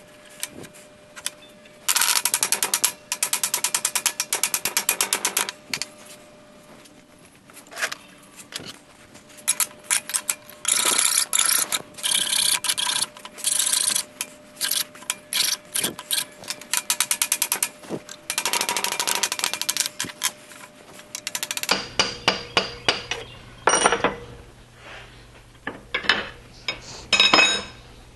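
A hand ratchet wrench clicking rapidly in three long bursts, with shorter runs between them. It is followed near the end by a few separate metal clinks and knocks.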